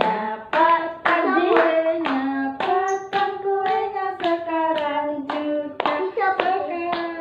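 A family group singing together at a birthday, with hands clapping in time, about two claps a second.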